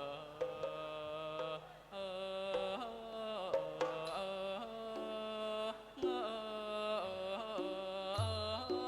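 Thai classical piphat ensemble playing a thao piece: a sustained melodic line with sliding, ornamented pitch bends over light percussion, with a low drum stroke near the end.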